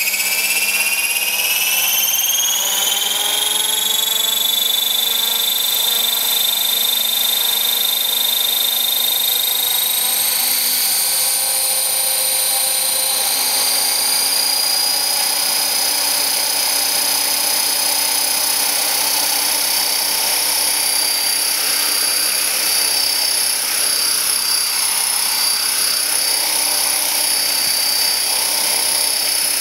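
Align T-Rex 500 electric RC helicopter running up on its 6S LiPo pack: a high electric motor whine with rotor blade whoosh. The whine climbs in pitch over the first few seconds, steps up twice more about ten and thirteen seconds in, then holds steady as the rotor reaches speed.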